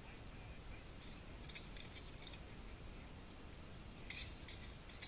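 Steel swords and plate armour clashing in a fight between armoured fighters: scattered sharp metallic clacks about a second and a half in, then a louder flurry about four seconds in, faint and distant over a low background rumble.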